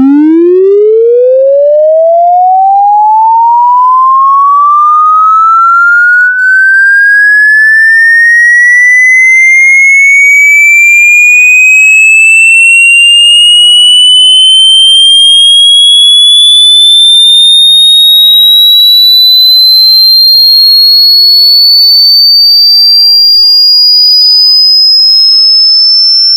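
Sound-check frequency sweep: a single loud, pure electronic tone gliding slowly and steadily upward from a deep bass hum to a high whistle, with fainter crossing tones behind it.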